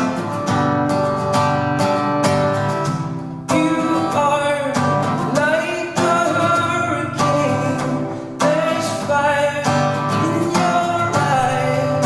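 Music: steadily strummed acoustic guitar under a lead melody that bends and glides in pitch, in phrases every few seconds.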